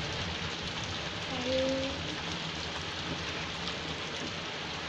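Steady rain falling and splashing on a concrete rooftop, with a short low hum about a second and a half in.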